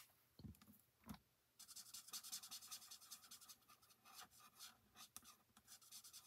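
Faint scratching of a light Boho Blue Stampin' Blends alcohol marker's tip on cardstock, colouring and blending in many quick short strokes, after two soft knocks in the first second or so.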